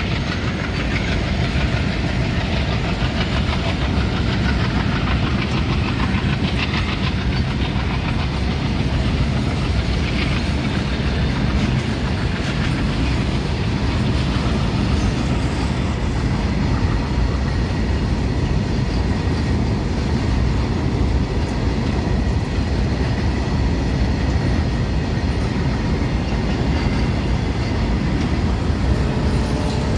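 Covered goods wagons of a long freight train rolling past on the rails: a steady rumble with clatter from the steel wheels.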